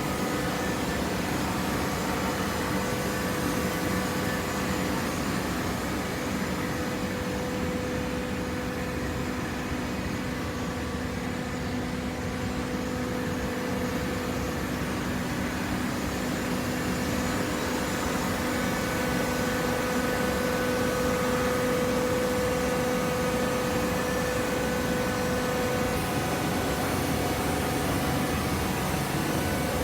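Hydraulic carton baler running: a steady mechanical hum from its pump and motor with a constant drone, a little louder in the second half.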